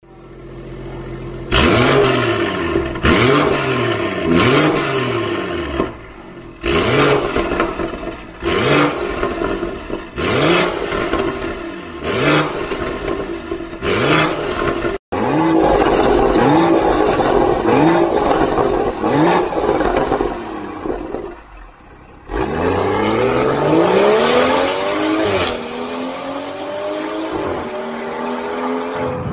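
BMW G30 540i's 3.0-litre turbocharged inline-six through an Armytrix cat-back valved exhaust with a decat downpipe: a string of sharp revs, each rising and falling, about one every second and a half. After a cut, more revving, then a hard acceleration whose pitch climbs steadily and drops at a gear change near the end.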